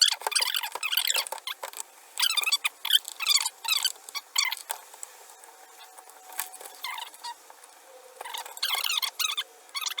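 Fast-forwarded repair footage: speech and workshop handling noise played about eight times too fast, turning the voice into rapid high-pitched squeaky chatter, with quick clicks and taps from the light being taken apart.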